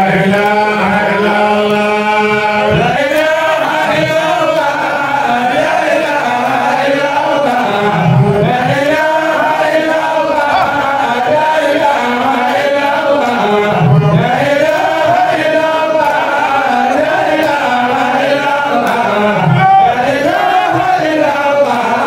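A man chanting an Islamic religious song into a microphone, with long held notes that waver and slide in pitch.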